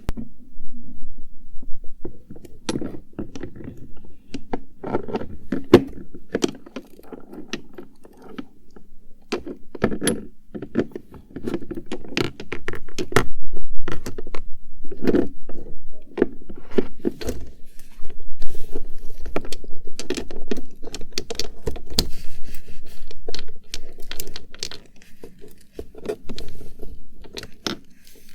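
Cosmetic items being rummaged through and handled: small cases and bottles clicking, tapping and scraping against each other in an irregular run of sharp clicks and knocks.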